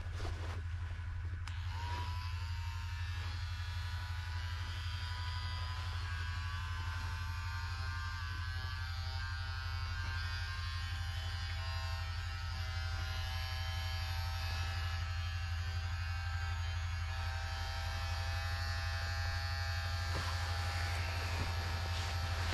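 Small electric blower running steadily, a low hum with a whine of several steady tones, driving the smoke of a smouldering Apiwarol varroa-treatment tablet into a beehive. The whine rises briefly and settles about two seconds in.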